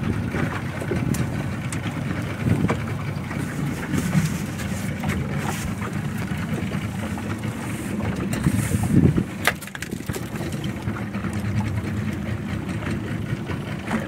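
Small fibreglass boat at sea: a steady rumble of wind on the microphone and water against the hull, with scattered knocks. The loudest knocks come about two-thirds of the way through.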